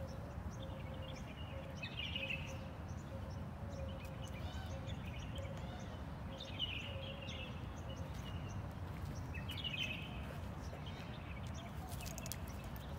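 Outdoor ambience: a steady low rumble with a small songbird chirping in short phrases every two to three seconds.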